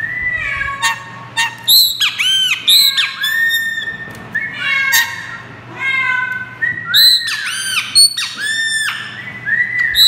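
Caged chopi blackbird calling in a loud, rapid run of short arched notes and rattling chirps, mimicking the call of a great kiskadee.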